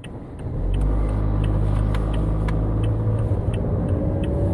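Car engine and road noise heard from inside the cabin while driving: a steady low drone, with the engine note rising slightly near the end as the car speeds up.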